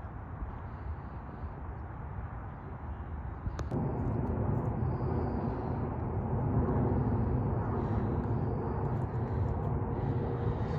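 Outdoor ambience: a steady low rumble with noise on the microphone, which gets louder after a sharp click about four seconds in.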